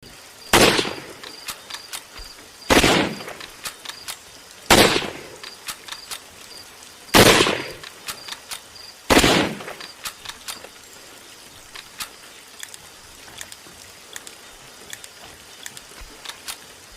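Five shots from a Mosin-Nagant bolt-action carbine in 7.62×54R, spaced about two seconds apart, each a sharp crack with a short echoing tail. After the fifth shot, about halfway in, only small clicks and a faint high chirping remain.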